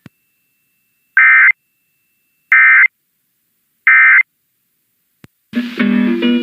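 Three Emergency Alert System end-of-message data bursts (the SAME 'NNNN' code), each a short screeching digital chirp about a third of a second long, spaced a little over a second apart, marking the end of the test message. Near the end, the station's regular program audio comes back.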